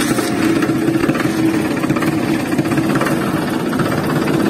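Diesel tractor engine running steadily with a fast, even chugging.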